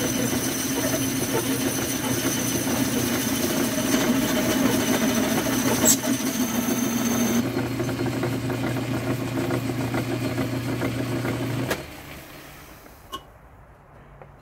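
Metal lathe running under a cut of about 50 thousandths, a steady motor hum with a high thin whine that stops about halfway. Near the end the running sound drops off sharply, followed by a single click.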